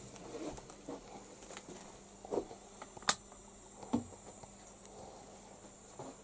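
Faint irregular rustling and scratching of a kitten on newspapers, with soft thumps and one sharp click about three seconds in.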